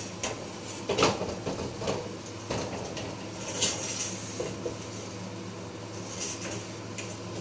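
A wok being tilted and swirled on a gas burner's cast-iron grate, giving irregular metal knocks and scrapes, over the steady hum of a kitchen range-hood exhaust fan.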